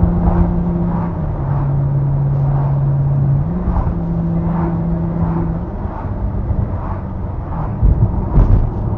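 Maserati Coupe GT's Ferrari-derived V8 running under way, heard from inside the cabin over road noise. Its steady note steps down in pitch about a second in, climbs back a couple of seconds later, then eases off; a few low thumps near the end.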